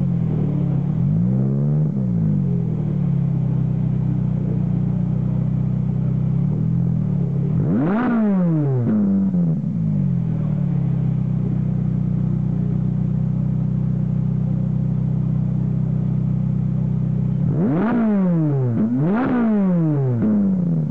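Ferrari 458 Italia's 4.5-litre V8 through a Tubi Style aftermarket exhaust, idling steadily and blipped on the throttle. There are a couple of short revs at the start, one sharp rev that rises high and drops back about eight seconds in, and two quick revs in a row near the end.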